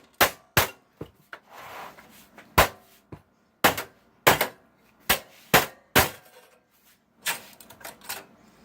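About a dozen sharp knocks and clanks at irregular intervals, with a short scrape about two seconds in: metal parts of a desktop computer case being banged and worked loose during a teardown.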